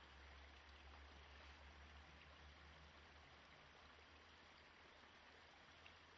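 Near silence: a faint, steady low hum under a soft hiss.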